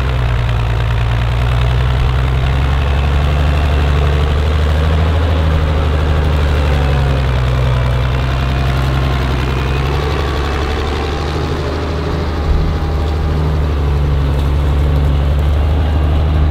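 International Harvester 956 XL tractor's six-cylinder diesel engine running steadily under load while pulling a reversible plough, a deep, even engine note.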